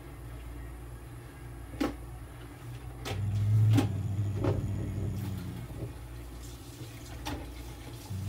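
Inhalation and oxygen therapy equipment running: a low electrical hum that is absent at first, comes on strongly about three seconds in and then weakens, with about five short sharp clicks scattered through.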